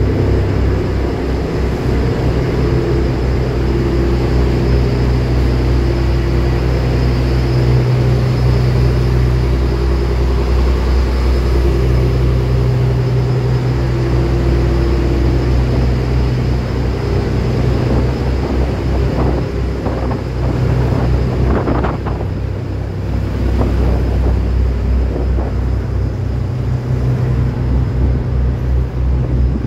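Steady low drone of a vehicle ferry's engines running under way, a constant hum with a few faint knocks about two-thirds of the way through.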